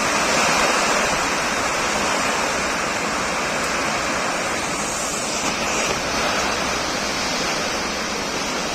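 Heavy rain pouring down steadily in a rainstorm, an even, unbroken rush of water.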